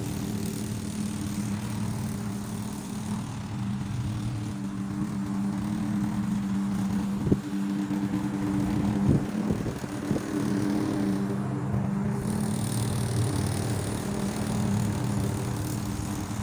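Lawn mower engine running steadily, with a few brief clicks or knocks about seven and again about nine to ten seconds in.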